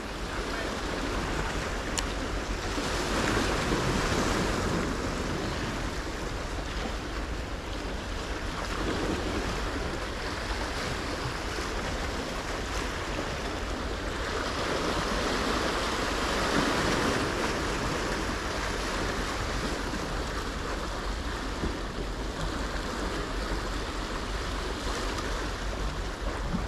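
Small sea waves washing and breaking against the boulders of a rock jetty, with wind rushing over the microphone. The surf swells a few seconds in and again about halfway through.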